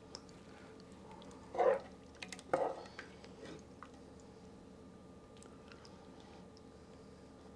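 Metal ladle serving thick meat stew onto rice: two soft wet plops, the first about a second and a half in and the second about a second later, with a few light clicks of the ladle between and after them.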